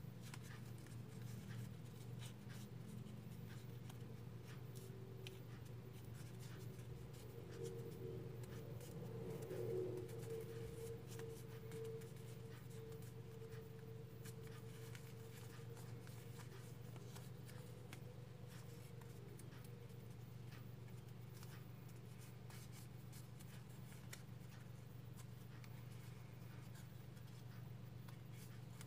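Origami paper rustling and creasing faintly as it is folded by hand, with many small crackles and scrapes. A steady low hum lies underneath, and a faint higher steady tone comes in about eight seconds in and fades out about twenty seconds in.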